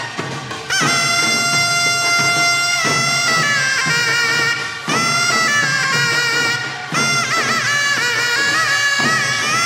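Taepyeongso, the Korean conical double-reed shawm, playing a loud reedy melody in phrases of about two seconds, its notes sliding and wavering in a fast vibrato.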